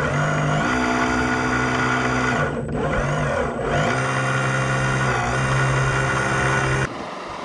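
Radio-controlled hydraulic excavator's motor and pump whining as the bucket digs, its pitch stepping up and down with the changing load. It cuts off suddenly near the end.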